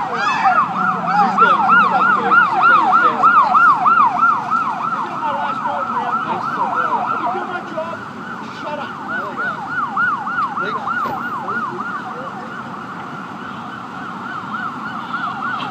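Emergency vehicle siren on a fast yelp, each wail rising and falling about four times a second. It is loudest in the first few seconds, fades through the middle and grows louder again near the end.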